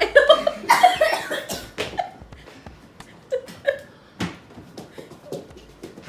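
A child coughing in a dense run of short bursts for the first two seconds, then a few single coughs. It is a reaction to the burn of ghost-pepper hot sauce.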